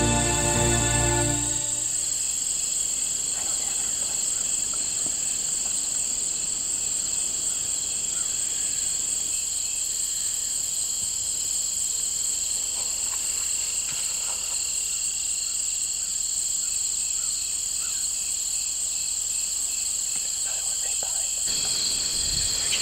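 Steady, high-pitched chorus of crickets and other insects droning on without a break. Background music stops about a second and a half in.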